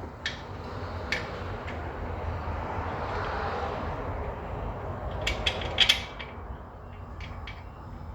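Metal hand tools clinking: a couple of sharp metallic clicks, then a quick cluster of louder clicks about five to six seconds in, over a steady low background rush.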